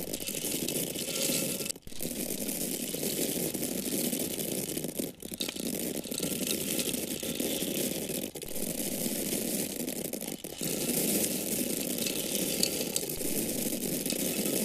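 Dried corn kernels falling in a steady stream, a dense continuous rattle of many small grains that drops out briefly four times.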